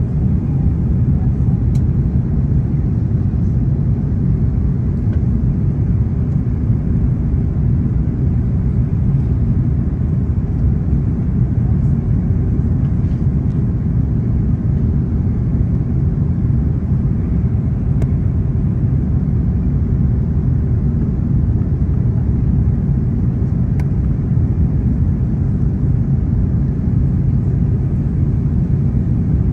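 Steady low rumble of cabin noise inside an Airbus A330-300 jet airliner descending on approach to land, unchanging in level throughout.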